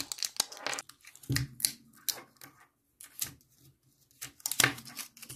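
Utility knife blade scraping and cutting the plastic shrink-wrap sleeve of a Ni-MH AAA battery pack, with irregular clicks and crackles as the plastic splits and is peeled away.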